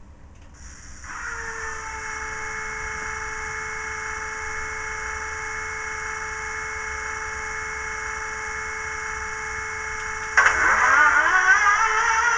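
Recorded Class 37 diesel start-up played through an OO gauge model's DCC sound-chip speaker: a steady whine of the fuel pump priming. About ten seconds in, a start attempt begins suddenly and louder, the engine turning over with a swooping, wavering note.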